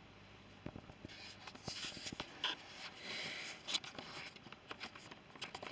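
Phone handling noise: fingers shifting and rubbing on the phone as it is moved, with scattered light clicks and a few short scratchy rustles.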